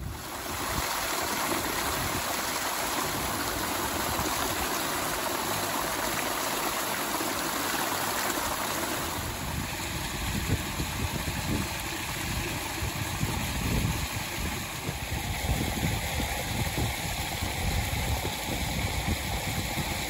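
Water running steadily with a continuous rushing hiss. From about halfway, gusts of wind buffet the microphone with a low rumble.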